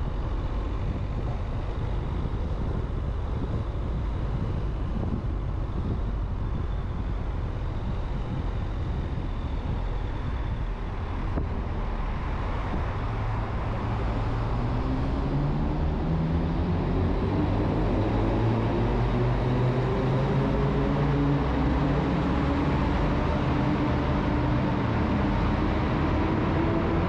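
Car driving, with steady road and engine noise; from about halfway in, the engine note climbs slowly as the car accelerates.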